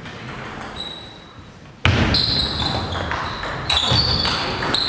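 Table tennis point: the ball bounces and clicks off the table and the bats. From about two seconds in, shoes squeak at a high pitch on the sports hall floor as the players move, and the sound jumps much louder at that point.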